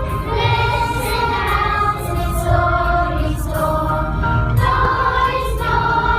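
Music with a choir of voices singing held notes that change pitch every second or so, over a steady low bass.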